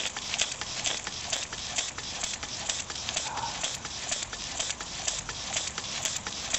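Homemade single-cylinder, single-acting model steam engine running, with a rapid, regular clicking of several clicks a second.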